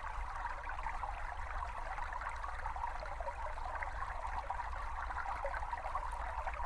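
A small brook babbling steadily.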